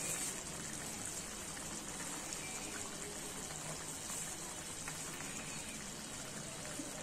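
Chicken pulao rice in an aluminium pot sizzling softly on the stove once its water has cooked off: a steady hiss with faint scattered crackles.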